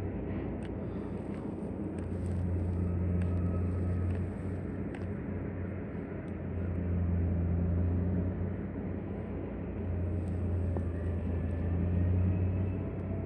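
A steady low engine-like hum that swells and eases every few seconds.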